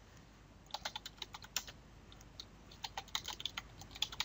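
Typing on a computer keyboard: a run of irregular key clicks that starts about a second in.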